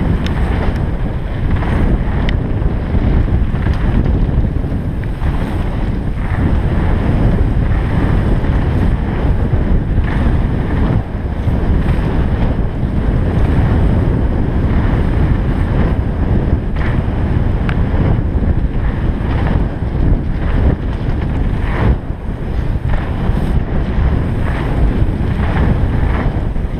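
Wind buffeting the microphone of a bike-mounted action camera on a fast mountain-bike descent, mixed with the rumble of tyres on a gravel trail. Frequent short clicks and knocks from stones and bumps run through it.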